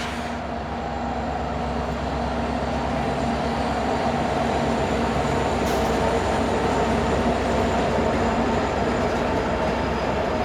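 Freight train led by three EMD SD70 diesel-electric locomotives going by, their 16-cylinder two-stroke engines running with a steady drone that grows louder over the first few seconds.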